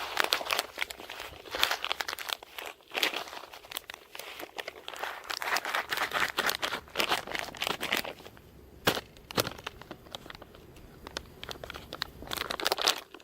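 Crinkly emergency-food pouch being squeezed and shaken to mix the dry rice-like contents, in dense bouts of rustling with a lull after about eight seconds.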